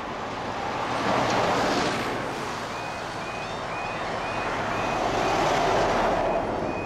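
Road level crossing warning alarm starting up about two and a half seconds in, a short high tone repeating about twice a second, as the amber lights come on. Road vehicles drive past over it: one around a second in, and a lorry, the loudest sound, near the end.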